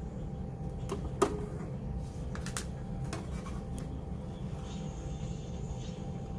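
A plastic cover on the base of a portable butane camping heater is twisted and pulled off by hand, opening the gas canister compartment: a few clicks and knocks, the sharpest about a second in. A steady low hum runs underneath.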